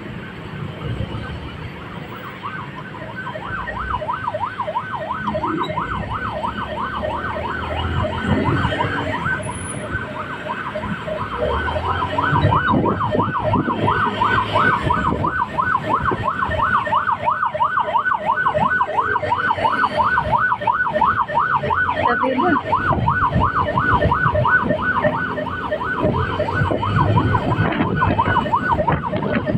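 A vehicle siren warbling rapidly up and down, about three to four times a second, starting about a second in and getting louder from about twelve seconds in. Under it are motorcycle engine and road traffic noise, with the engine pitch rising and falling.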